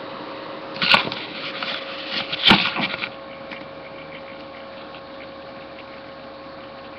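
Handling noise as the camera is picked up and moved: rustling with two sharp knocks, about one and two and a half seconds in, the second the louder. A steady hum runs under it throughout.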